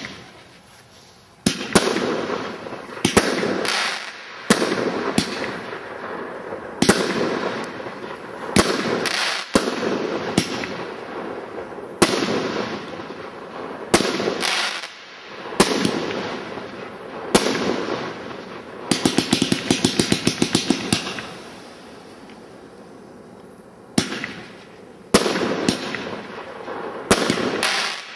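WECO Art. 1741 'Symphony of Colours' multi-shot firework going off shot after shot, each sharp bang trailing off in a hiss. A little past the middle comes a rapid run of crackles. A lull of a few seconds follows, then the shots start again.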